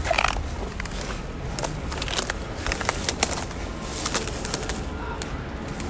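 Footsteps pushing through dry weeds and brush, with stems and twigs rustling and crackling in many short snaps, and a brief louder swish right at the start.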